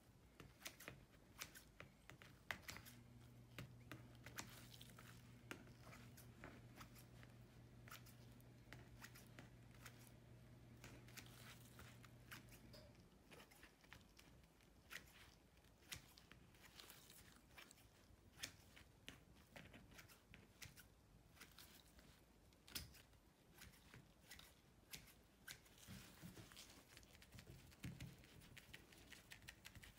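Kitchen shears trimming refrigerated pie crust dough along the rim of a pie pan: faint, irregular snips and clicks.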